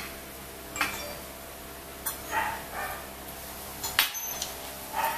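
A metal fork clicks and scrapes against a ceramic plate as a piece of crispy fried chicken is pulled apart, the sharpest click about four seconds in. A few short high yelps sound between the clicks and again near the end.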